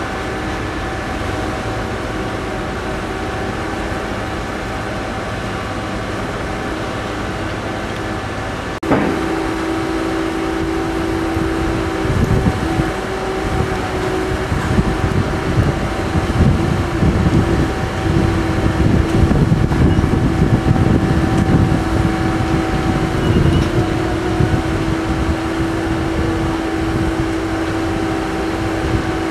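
Heavy diesel construction machinery running with a steady engine hum. About nine seconds in there is a sharp knock, then an engine note strengthens and a rumbling low churn grows louder for about ten seconds before easing off.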